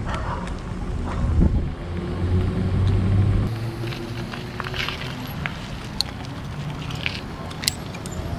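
Riding a bicycle over a brick-paved sidewalk with the camera on the rider's head: a low rumble of wind and rolling tyres under a low steady hum, with a scatter of short sharp clicks and rattles in the second half.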